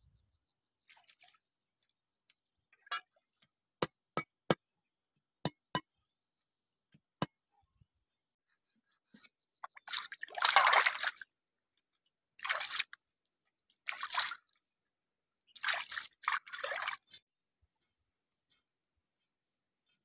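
Fish being washed by hand in shallow stream water: a scattering of sharp single drips in the first few seconds, then four short bursts of splashing and sloshing about halfway through as the fish is rubbed and rinsed.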